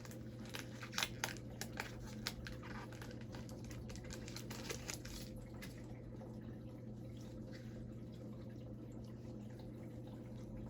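Trading card pack wrapper crinkling and cards being handled, a scatter of light crackles and clicks over the first half, then quieter. A steady low electrical hum runs underneath.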